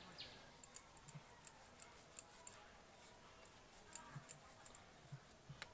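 Near silence broken by faint, irregular small clicks and taps, a dozen or so, with a pause of about a second in the middle.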